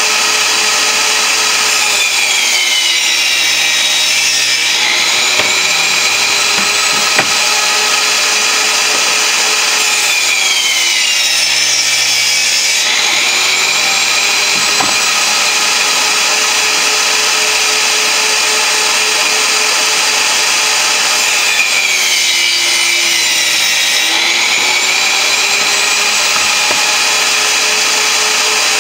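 Table saw running steadily with its motor whine, the pitch sagging and then recovering three times as the blade is loaded by cuts through plywood.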